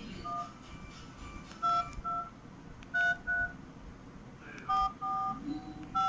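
Nokia keypad phones beeping as keys are pressed: about seven short two-note dial-tone beeps, mostly in quick pairs, with a longer held beep near the end. The keypad tones of a new Nokia 3310 and an old Nokia 105 are being compared, and they are the same sound.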